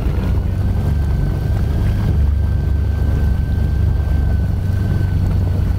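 Mastercraft ProStar 190 inboard ski boat's engine running under power: a steady low rumble with a thin, steady whine above it, along with water rushing against the hull.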